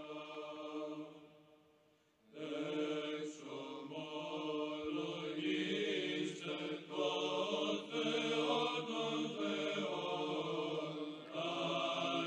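Slow choral chant of held, sustained notes. One phrase fades away, and after a short gap about two seconds in, a new phrase begins and carries on.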